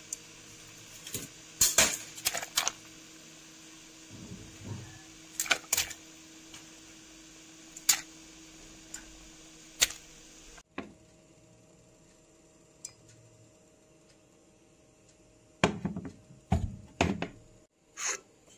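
Scattered knocks and clinks of kitchen utensils and dishes being handled, a few of them sharp, over a faint steady hum that drops away abruptly about ten and a half seconds in. A second cluster of knocks comes near the end.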